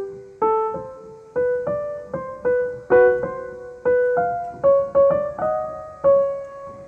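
Background music: a piano melody of single notes, each struck and fading, a new note about every half second.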